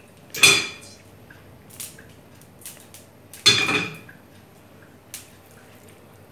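Cookware clanking on a gas stove: two sharp metallic clangs about three seconds apart, each ringing briefly, with a few light clicks between.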